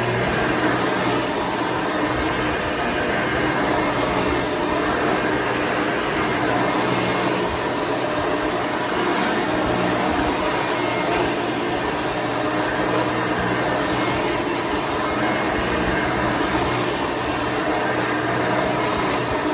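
Hoover Runabout vacuum cleaner running steadily at full power. Its brush roll has bearings that the owner calls a little shot.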